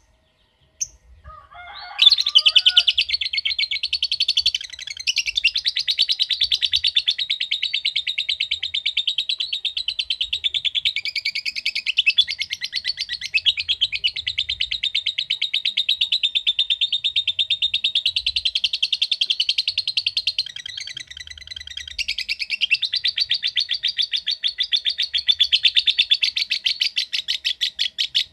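Lovebird's 'ngekek': a long, unbroken rapid-fire chattering call, high-pitched. It starts about two seconds in after a few short chirps and clicks, and goes on with only a brief dip about three quarters through.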